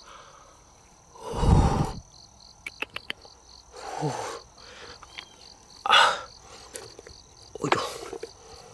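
Insects chirping steadily in the background, a pulsing call about four times a second over a thin high whine. Over it come several short bursts of handling noise as lumps of rock are lifted and shifted in a wooden box, the loudest a thump with a deep low end about one and a half seconds in.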